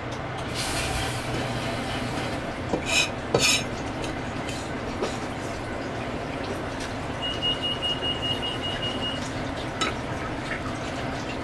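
A few sharp metallic clinks about three seconds in, typical of a Chinese cleaver knocking against a plastic chopping block, over a steady background rush. A thin, steady high tone holds for about two seconds past the middle, and there is one more small click near the end.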